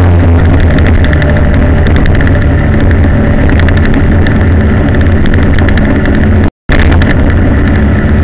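Vehicle engine running along the road, a loud constant low drone. The sound drops out completely for a split second about six and a half seconds in.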